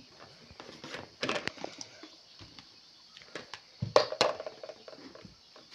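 Kitchen handling noises: scattered clicks, taps and light scrapes of utensils and containers being moved about, with two sharp knocks about four seconds in.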